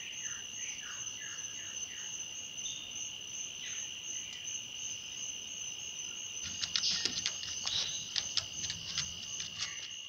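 Steady high-pitched trill of crickets, with a few short falling chirps in the first couple of seconds and a run of sharp clicks and taps over the last few seconds.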